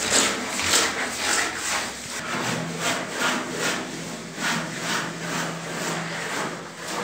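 Rhythmic scraping strokes, about two to three a second, like a hand tool worked back and forth.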